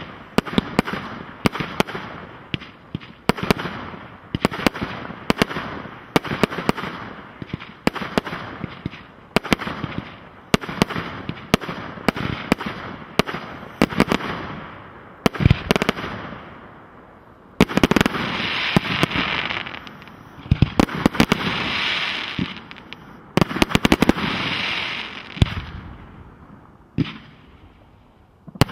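Fireworks display: aerial shots bang about once a second, each trailing off into crackling. Past the middle, denser, louder crackling bursts take over. It quietens near the end.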